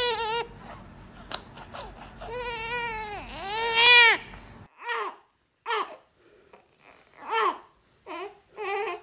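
Newborn babies crying. One infant cries in long cries, loudest about four seconds in; after a cut, a second newborn gives about five short cries with silent pauses between.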